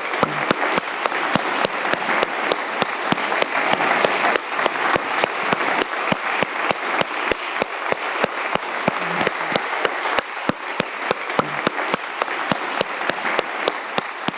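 Audience applauding steadily, with one person's claps close by standing out as sharp, even strokes at about three a second.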